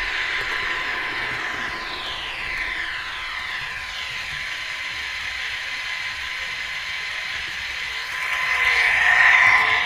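An H0-scale model of a BR130 diesel locomotive running on its track: a steady high mechanical whine from the small motor and drive, with the wheels rattling on the rails. Whines glide up and down in pitch, and the sound swells louder about eight seconds in before easing off.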